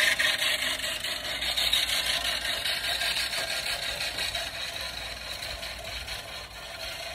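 Manual push reel mower cutting grass: the spinning cutting reel makes a rapid, even clicking whir that grows steadily fainter as the mower is pushed away.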